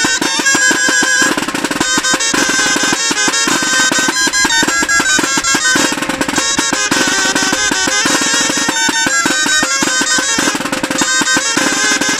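Music from a murga street band: wind instruments playing a lively tune over a busy drum beat.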